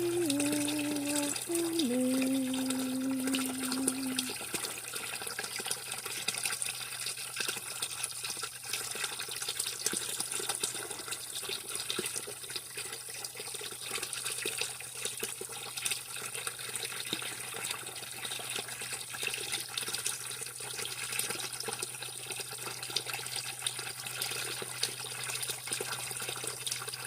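Running water, a steady even rush. In the first four seconds a few held pitched notes, stepping down in pitch, sound over it.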